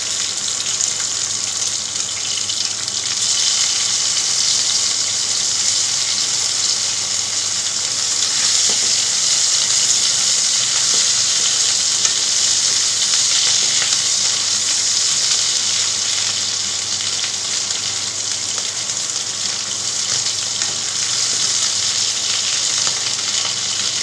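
Cubed raw potatoes frying in hot oil in a nonstick pan, a steady sizzle.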